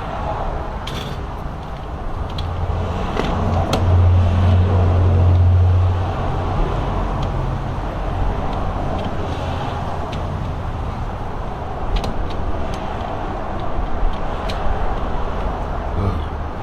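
Steady rumble of a motor vehicle, with a low hum that swells about four seconds in and fades about two seconds later, and a few faint clicks.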